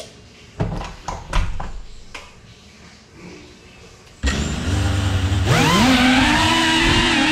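Brushless motors of an FPV quadcopter kicking in with a sudden steady whir about four seconds in, then spooling up about a second later into a rising whine that wavers with throttle. A few sharp clicks come earlier.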